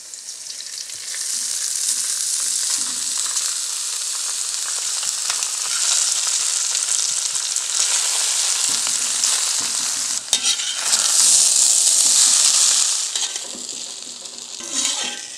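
Cooked rice vermicelli and vegetables sizzling in hot oil tempering in a brass pan as they are tipped in and stirred with a steel ladle. The sizzle swells about a second in and is loudest a little after the middle, with a few ladle scrapes.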